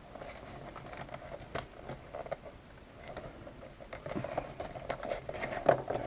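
Hands working open a taped-shut cardboard Rubik's Cube box: scattered crinkles, scrapes and small clicks of card and tape, busier in the last couple of seconds.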